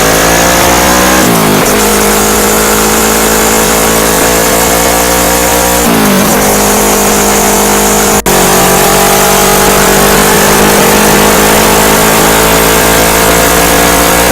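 Kawasaki Vulcan S 650's parallel-twin engine through a full Delkevic exhaust, heard close behind the muffler, pulling hard through the gears. The pitch climbs, drops at upshifts about one and six seconds in, then rises slowly at highway speed. Loud, with heavy wind rush and a momentary break about eight seconds in.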